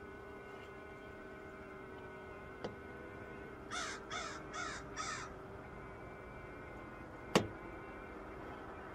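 A crow cawing four times in quick succession, harsh and rasping, over a steady faint hum. A small click comes before the caws, and a single sharp knock, the loudest sound, follows a couple of seconds after them.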